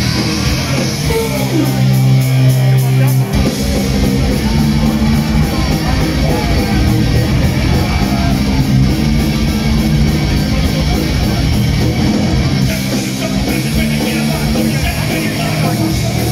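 Live punk rock band playing loud, with electric guitars, bass and drums, heard from within the crowd.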